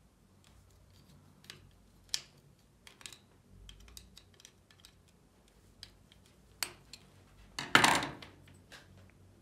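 Small metal clicks and taps as a flat cutting blade is worked onto the tip of a soldering iron, with a louder clatter near the end.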